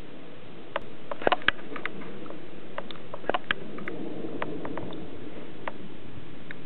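Irregular light clicks and taps, a few clustered together about a second in and again after three seconds, over a soft background hiss.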